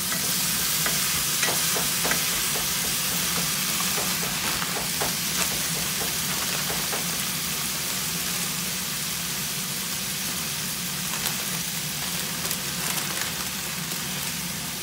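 Long beans and mushrooms sizzling as they stir-fry in a pan, a steady hiss. Wooden spatulas tap and scrape against the pan during the first several seconds.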